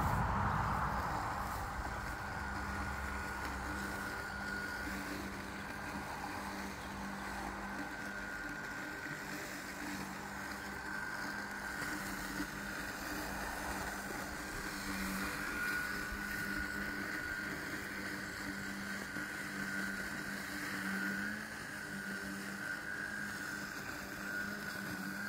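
Mammotion LUBA 2 robotic lawn mower driving and cutting grass: its electric motors give a steady whine, a low hum under a higher wavering tone.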